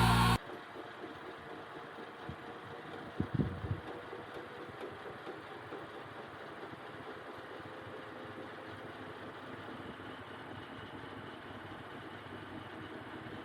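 Washing machine running a spin cycle with a steady, quiet hum and a brief cluster of knocks about three seconds in. The drum runs on new suspension and no longer hits the cabinet. Background music cuts off just before the hum.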